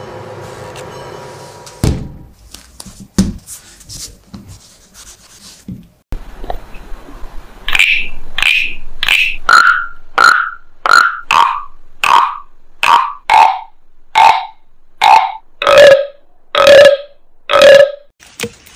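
Wooden frog guiros of several sizes croaked in turn with a stick drawn along their ridged backs. About fourteen croaks come under a second apart and step down in pitch, from the small frogs to the large. Before them, a woodworking lathe runs briefly and cuts off, followed by a few light knocks.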